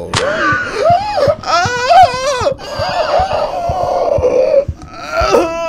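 A man's loud wordless wailing: long drawn-out vocal cries that waver up and down in pitch, loudest about two seconds in, with another wavering cry near the end.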